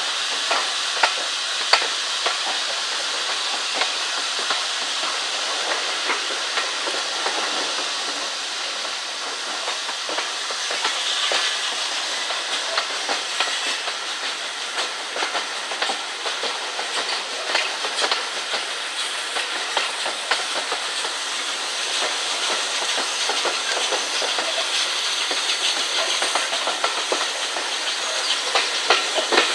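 Steam-hauled passenger train running, heard from an open carriage window: a steady rushing noise with frequent sharp clicks of the wheels over the rails.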